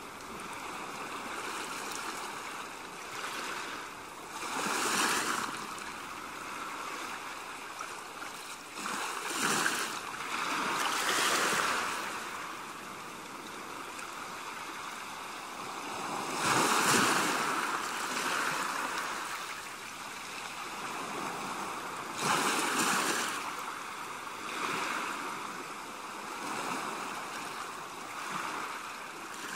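Small waves washing ashore, swelling and falling back every few seconds over a steady hiss of moving water.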